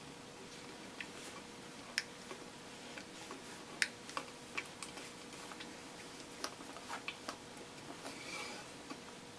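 Irregular light clicks and taps from handling a plastic paint cup and a brush while white paint is poured and spread on a canvas, the sharpest about four seconds in, with a short soft brushing rustle near the end. A faint steady hum lies underneath.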